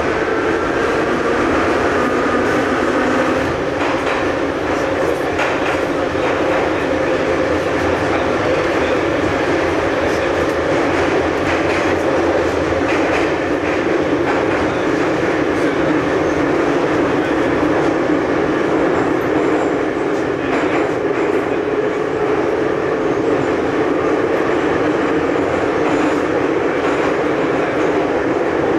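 Saint Petersburg metro train heard from inside the carriage, running with a steady loud rumble of wheels and rails and occasional clacks over rail joints. A motor whine climbs in pitch over the first few seconds, then holds, and climbs again in the second half as the train picks up speed.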